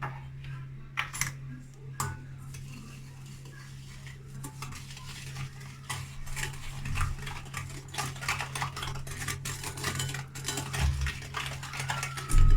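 Eggs being beaten with sugar and semolina in a bowl: a utensil clinks against the bowl, first a few separate knocks, then a fast, steady clatter from about four seconds in. There is a louder knock near the end.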